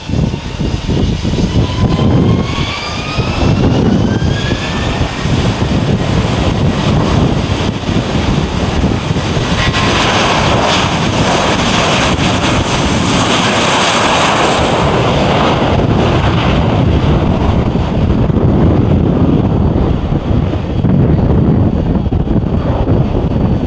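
Jet aircraft engines: a whine rising in pitch over the first few seconds, then a loud, steady rush of engine noise that is loudest around the middle and stays strong to the end.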